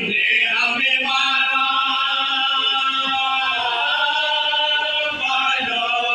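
A group of men's voices singing a marsiya, an Urdu elegy for Muharram, together without instruments, in long held notes that step to a new pitch every second or two.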